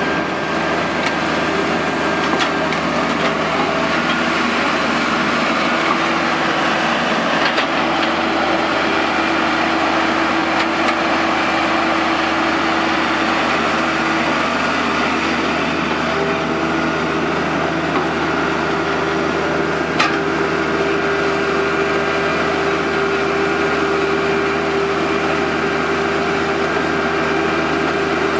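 Caterpillar 308 mini hydraulic excavator's diesel engine running steadily under working load as the boom and bucket move, with a steady hum over the engine noise and an occasional sharp clank, the clearest about twenty seconds in.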